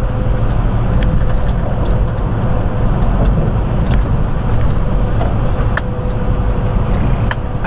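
Semi-truck cab at highway speed: a steady low drone of the diesel engine and road noise, with a faint steady tone and a few light ticks.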